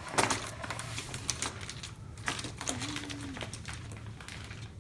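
Lipstick tubes and packaging being handled: a run of light, irregular clicks and rustles.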